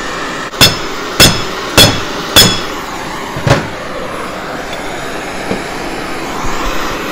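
A handheld gas torch flame hisses steadily while it heats a propeller drive pulley to free its bearings by expansion. About half a second in come four sharp metal taps a little over half a second apart, each ringing briefly, and a fainter fifth tap follows a second later.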